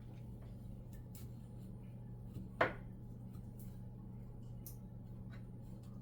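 A single sharp click or tap about two and a half seconds in, over a low steady hum, with a few faint ticks scattered around it.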